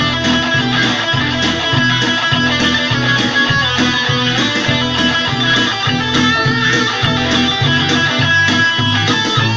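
Yamaha Pacifica electric guitar being played, a continuous run of picked notes over a steady, evenly repeating low pulse.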